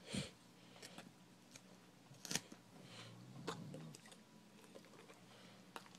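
Rhodesian Ridgeback chewing and crunching lettuce, quiet wet bites with scattered crisp clicks, one sharper click a little past two seconds in. A soft thump right at the start.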